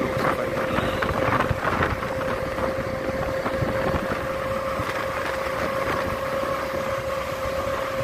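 Motorcycle riding along at a steady speed: engine running with a steady whine, under wind noise on the microphone.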